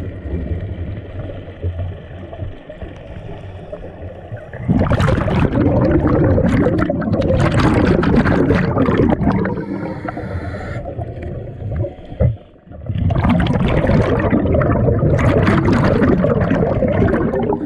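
Scuba regulator breathing heard underwater: two long, loud rushes of exhaled bubbles, one starting about five seconds in and another a few seconds before the end, between quieter low rumbling spells.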